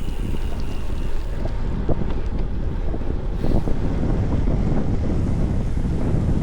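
Strong wind buffeting the microphone as a loud, steady low rumble.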